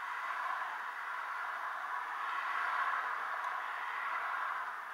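Steady hiss of road traffic heard from inside a parked car, swelling for a couple of seconds in the middle as cars drive past.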